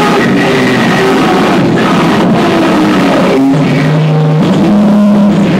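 Loud live noise music: a dense, continuous wash of distorted noise with held tones that jump in pitch, a strong low drone entering about two-thirds of the way through.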